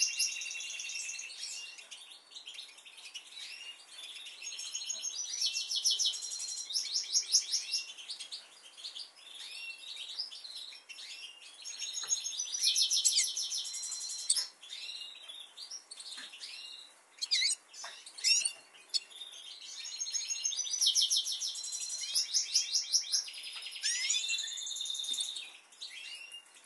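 Captive Eurasian siskins chirping and twittering. Bursts of rapid, high-pitched trills a second or two long recur throughout, with short chirps between them.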